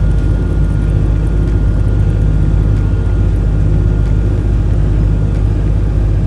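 Steady low rumble of a vehicle driving on the road, with a faint thin high tone that stops near the end.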